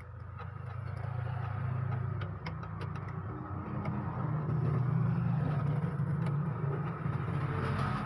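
A motor vehicle's engine running steadily, getting louder and a little higher in pitch about four seconds in. A few light clicks of plastic printer parts being handled in the first couple of seconds.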